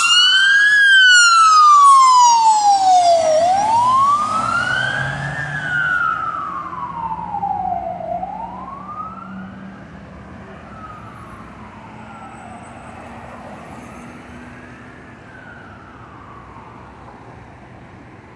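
Fire truck siren on wail: a slow rise and fall in pitch, about four cycles, loudest at the start and fading away over the second half, with a low drone underneath.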